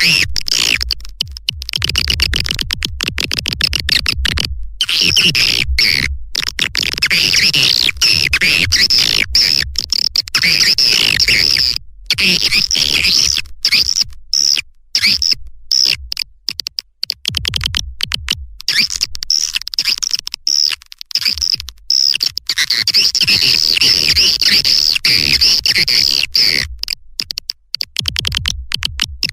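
Swiftlet lure call recording: dense, rapid twittering chirps of swiftlets, layered and looped, with a low pulsing underneath. The sound cuts out abruptly for short moments many times.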